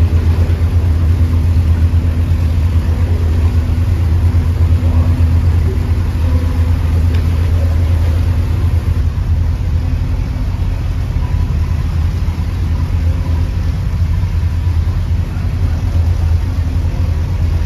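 Narrowboat's diesel engine running steadily at cruising speed inside a brick canal tunnel, an even low throb with no change in revs.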